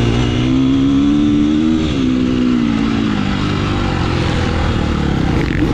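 Engine of a racing vehicle under load. Its pitch climbs for about two seconds, drops sharply, then falls away slowly as the speed eases.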